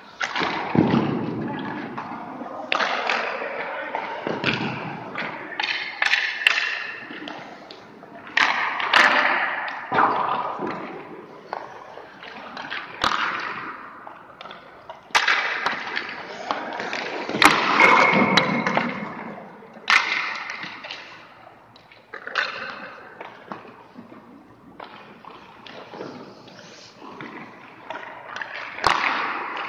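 Hockey skates scraping and carving on ice, in repeated swells that fade, with a few sharp cracks of pucks being shot and striking sticks or goalie pads.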